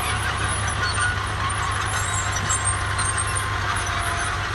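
Tractor engines running steadily, the nearest a crawler tractor pulling a plough through the soil.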